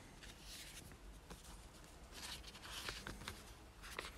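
Faint rustling of paper leaflets being handled and leafed through, with a few light clicks.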